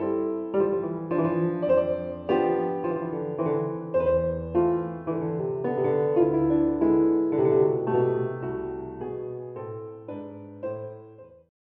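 Digital piano played with both hands: a lively tune of chords under a melody, thinning out and dying away near the end.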